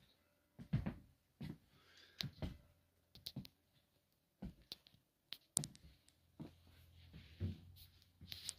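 Footsteps on the floor of an abandoned train carriage, about one a second, with small sharp clicks among them.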